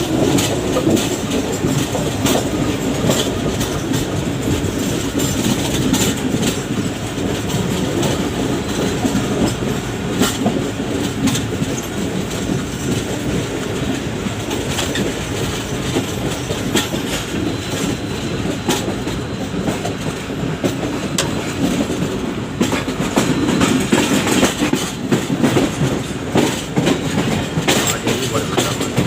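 Pak Business Express passenger train running, its wheels clattering over the rail joints with a continuous rumble. It grows a little louder for a few seconds near the end.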